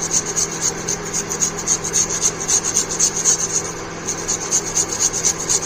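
A piece of fresh ginger root grated on a hand-held kitchen grater: quick, even rasping strokes, several a second.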